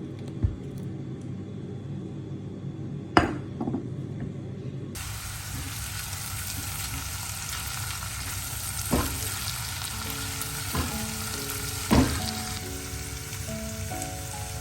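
Food frying in a pan, a steady sizzle that starts suddenly about five seconds in, with a few sharp clacks of a utensil stirring it. Before that there is a low, even rumble and a single loud knock.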